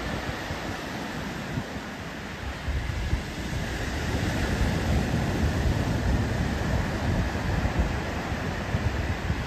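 Small surf breaking and washing up a sandy beach, with wind buffeting the microphone. The low rumble grows louder and gustier a few seconds in.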